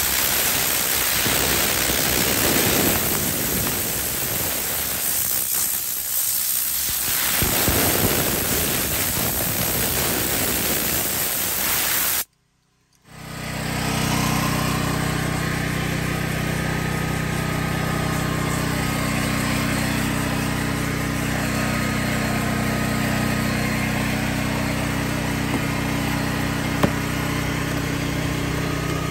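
A loud, steady rushing hiss of a detailing tool working over a leather car seat, which cuts off abruptly about twelve seconds in. After a moment of silence, a steady low engine hum runs on, with a single sharp click near the end.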